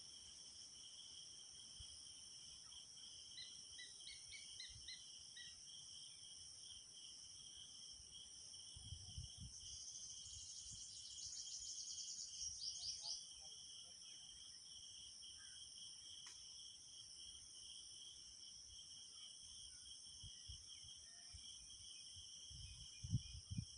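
Steady chorus of crickets or other insects trilling, with a few faint short bird chirps a few seconds in and a louder rapid chirping series about ten seconds in. Low thumps, most strongly near the end.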